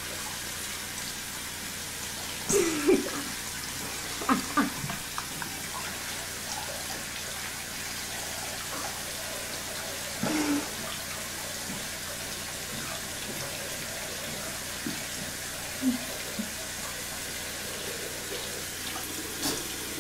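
Bathroom sink tap running steadily, with a few short mouth sounds from someone brushing his teeth over the sink.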